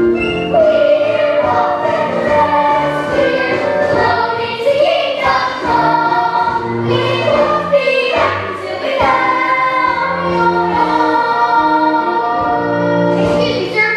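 A young cast singing together in chorus over instrumental accompaniment, a stage musical number.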